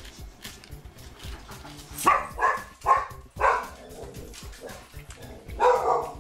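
A dog barking excitedly in short sharp barks: a run of four about two to three and a half seconds in, then another burst near the end.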